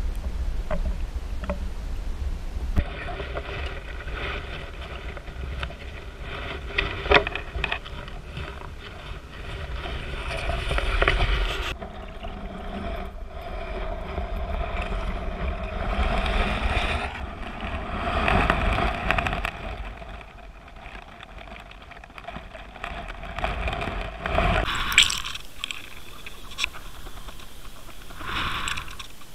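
Muffled underwater rushing and rumbling of water over a Water Wolf lure camera's housing as it is drawn through the water on a fishing line, with a steady hum that swells and fades and a few sharp knocks.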